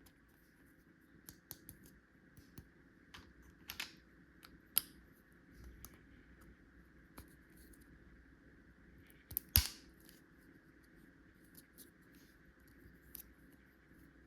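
Scattered light clicks and taps of toy tool-set pieces being handled and unpacked, with a sharper click about nine and a half seconds in and another near five seconds.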